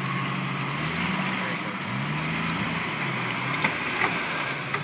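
Jeep Cherokee XJ engine running under light throttle, its pitch dipping and rising several times as the Jeep crawls through a muddy, water-filled rut.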